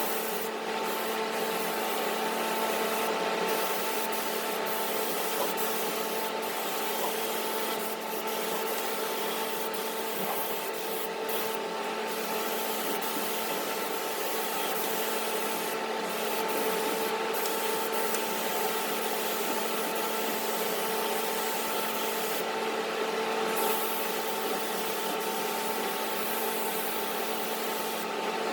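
Continuous hiss of a paint spray gun laying down a coat of Rust Encapsulator, over the steady hum of an exhaust fan. The hiss briefly thins several times as the trigger is let off.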